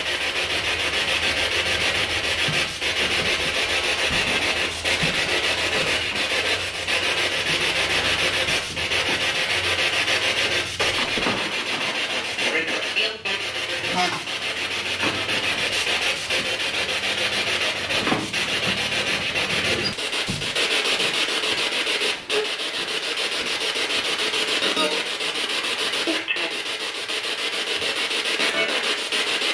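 Ghost-hunting spirit box rapidly sweeping radio stations through its speaker: a steady hiss of static, broken by brief dropouts every second or two.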